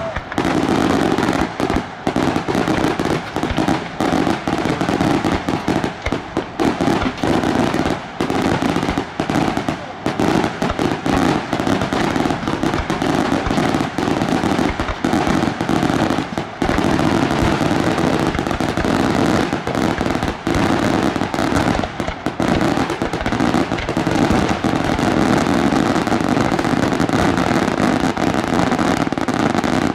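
Daylight fireworks display: aerial shells bursting in a dense, continuous barrage, the bangs and crackling reports running together with barely a gap.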